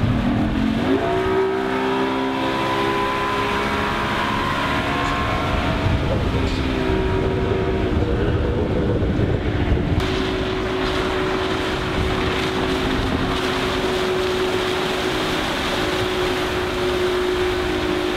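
Mercury 150 hp oil-injected two-stroke outboard on a 21 ft walk-around boat, rising in pitch in the first second as the boat accelerates, then running steadily at planing speed.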